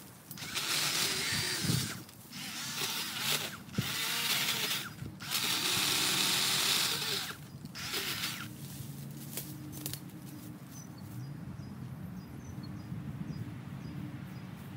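Battery-powered electric chainsaw cutting brush in about five short bursts, each a second or so long, which stop a little over halfway through. A low steady hum remains after the cutting stops.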